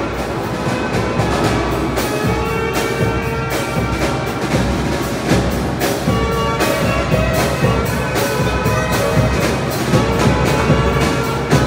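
Tamborazo band playing: brass horns holding notes over a steady bass drum and snare beat.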